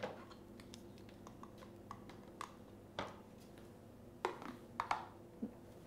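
Light plastic clicks and taps as baby bottle parts are lifted out of a steam steriliser and set down, a few sharper knocks in the second half.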